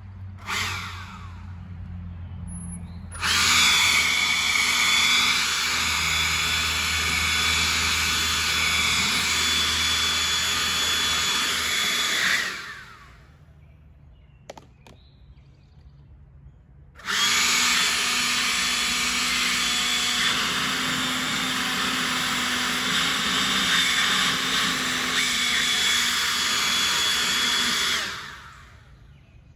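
A power tool motor running at high speed with a high whine, in two long runs. Each starts suddenly and winds down over about a second.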